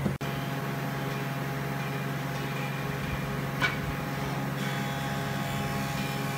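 Steady low mechanical hum, with one short sharp tap about three and a half seconds in.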